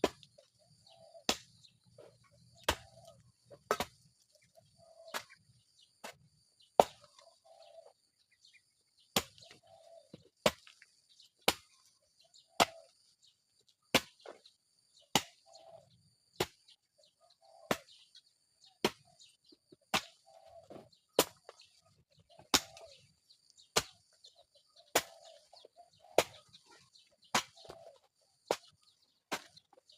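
Sharp knocks repeated at a fairly even pace, about one every second, each followed by a brief mid-pitched sound.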